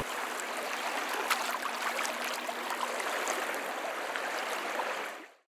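Aquarium water bubbling from air stones: a steady trickling sound with small pops, fading out near the end.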